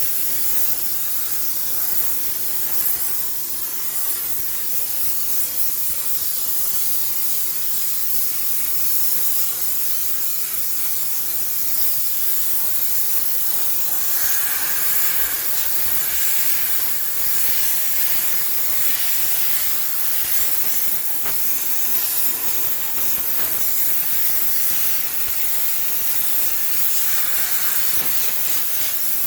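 High-pressure steam sterilizer jetting steam inside a washing machine: a continuous hiss, fuller for a few seconds about halfway through and again near the end.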